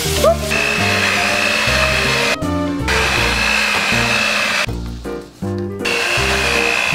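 Electric hand mixer running with a steady high whine as its beaters work eggs into creamed butter and sugar. It runs in stretches, cutting out briefly twice.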